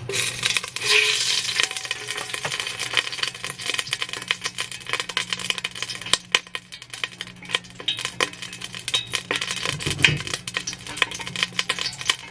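Oil sizzling in a frying pan on the stove, with frequent sharp pops and clicks of a utensil stirring and scraping in the pan.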